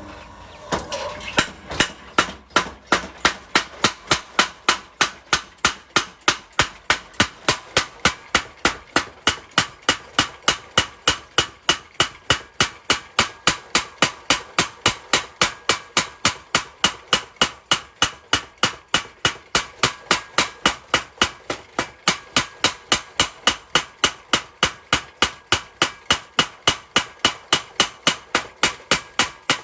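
Mechanical blacksmith's power hammer forging iron: a steady, even train of about two sharp blows a second, metal on metal.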